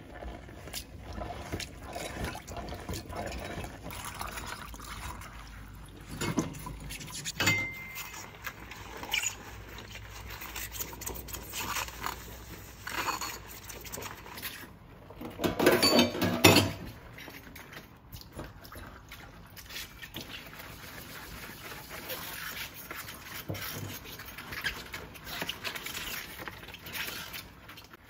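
Kitchen cleaning sounds: liquid pouring and water running, mixed with scattered knocks and clinks of things being handled. About halfway through comes a louder rushing stretch.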